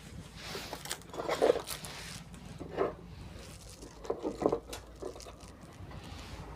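Handling noise on a repair bench: scattered clicks, scrapes and rustles as a car-stereo chassis and its power leads are handled, over a low steady hum.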